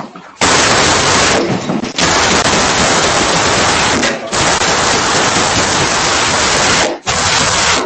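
Sustained rapid gunfire, many shots merging together in long volleys with brief pauses. It starts about half a second in and is loud enough to overload the doorbell camera's microphone into a continuous harsh crackle.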